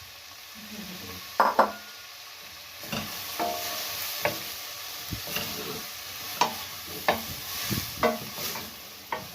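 Chopped leeks sizzling in melted butter, stirred with a spoon that clicks and scrapes against the pan. The sizzle grows louder about three seconds in.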